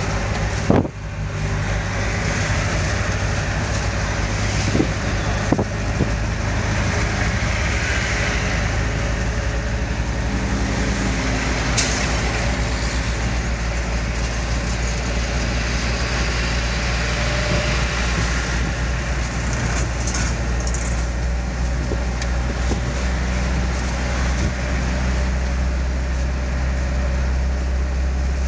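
A motor vehicle being driven: steady engine drone with road noise, and a sharp knock about a second in.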